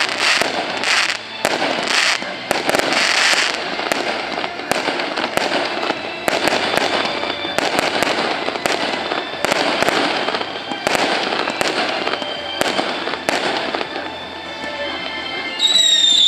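Fireworks going off: a rapid series of bangs and crackling bursts, with no let-up.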